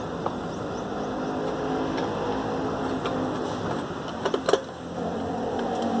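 Screwdriver working the screw out of the upper access cover on an A.O. Smith electric water heater: a few faint clicks and scrapes over a steady background noise, with a couple of sharper clicks about four and a half seconds in.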